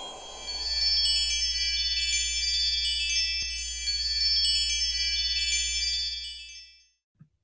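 Title-card jingle of many overlapping, shimmering chime tones over a low steady hum, fading out near the end.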